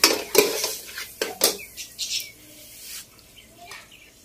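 Metal spoon knocking and scraping against a ceramic bowl and a steel pot as ginger-garlic paste is tipped in: several sharp clicks in the first second and a half, then quieter, with a few faint bird chirps.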